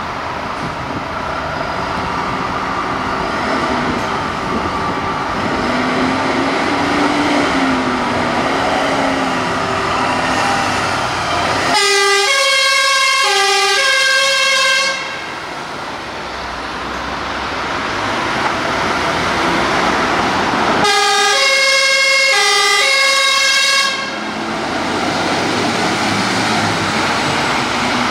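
Diesel engines of MAN HLF fire engines running as they pull out and drive past. Twice, for about three seconds each time, a fire engine's two-tone siren sounds, alternating between a low and a high note, and cuts off suddenly.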